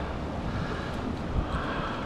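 Wind buffeting the microphone on an open boat: a steady rumbling noise with no sharp sounds.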